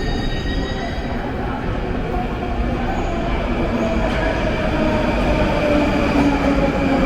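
Moscow Metro train running through the station: a steady rumble with a whine that slides slowly down in pitch, growing a little louder toward the end.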